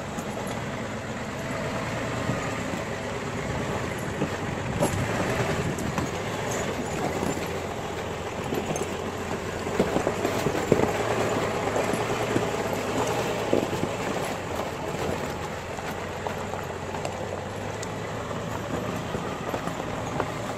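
Heavily loaded old flatbed logging truck's engine running under load as it climbs, its tyres churning through mud and slush, with a few sharper knocks about ten seconds in.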